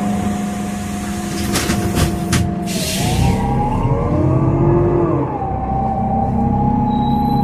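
Inside a Solaris Urbino 12 III CNG city bus, a few knocks and a pneumatic air hiss come about two seconds in. Then the Iveco Cursor 8 gas engine and Voith automatic gearbox pull away, with a whine rising in pitch until an upshift about five seconds in, and run steadily after it.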